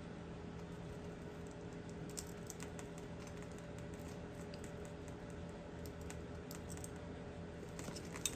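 Scattered light clicks and ticks of steel crimping pliers and wires being handled while a blue insulated butt connector is crimped onto headlight wiring, more of them near the end, over a steady low hum.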